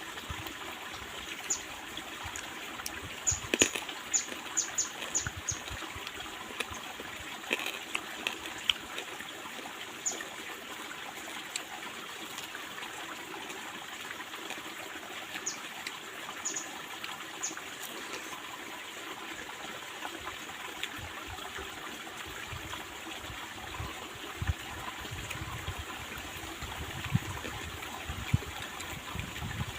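A mountain stream babbling over rocks, a steady rushing trickle, with scattered sharp clicks, several in the first third and a few more midway, and some low knocks near the end.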